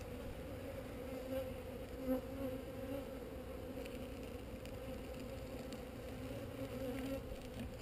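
Honeybees buzzing around an open hive: a steady hum that wavers slightly in pitch as many bees fly close by.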